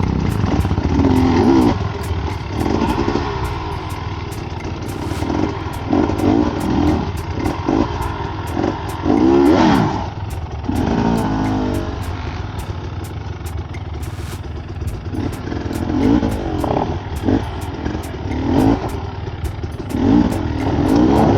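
Enduro dirt bike engine revving in repeated bursts, the pitch rising and falling every second or two as the throttle is worked to pick through rough, rocky ground.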